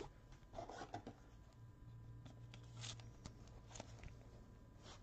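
Faint rustling and a few light clicks of trading cards and a hard plastic card holder being handled with gloved hands, over a faint low hum.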